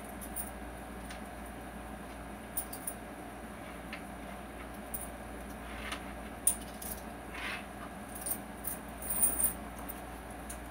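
Small objects being handled and set down: scattered light clicks, knocks and rattles, with a couple of short rustles, over a steady low hum.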